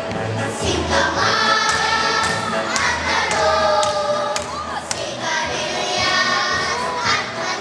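Children's choir singing with musical accompaniment, a repeating low bass note beneath the voices and a few sharp clicks in the middle.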